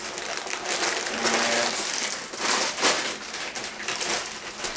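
Packaging crinkling and rustling as items are handled and pulled out during an unboxing.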